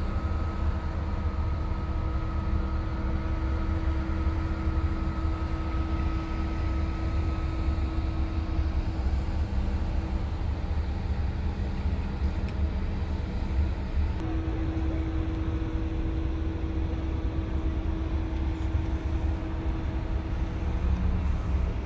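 Large gas carrier's engines and machinery humming steadily, a few held tones over a deep rumble.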